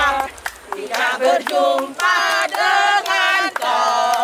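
A group of voices singing together in short phrases with brief pauses between them.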